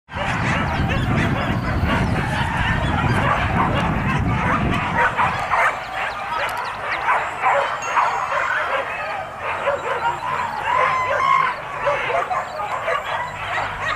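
A pack of boar-hunting dogs barking and yelping, many voices at once and without a break, as they run the chase. A low rumble sits under the barking for about the first five seconds.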